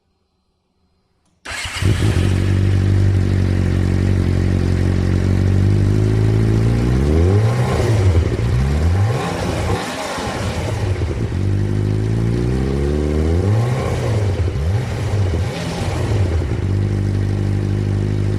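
Suzuki GSX-R motorcycle engine running through its stock exhaust, coming in after a moment of near silence and idling, then revved twice, the pitch climbing and falling back each time.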